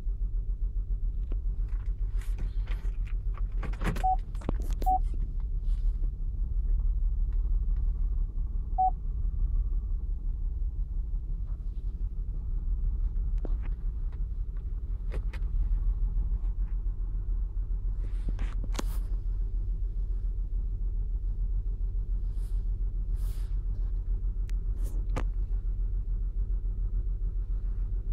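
2008 Saturn Outlook's 3.6-litre V6 running at a cold idle with a steady low rumble, misfiring in cylinder 1 (code P0301), a fault that shows only on cold starts. A few short beeps sound, twice about four seconds in and once about nine seconds in, among scattered clicks.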